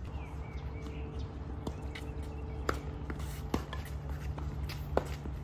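Tennis balls being struck by racquets in a doubles rally: several sharp pops about a second apart, the loudest near the end. Under them run a steady low hum and a low rumble.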